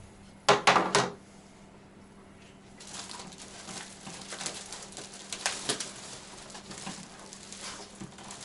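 Plastic parts being handled: three loud clacks in quick succession about half a second in, then continuous crinkling and rustling with scattered small clicks from about three seconds on.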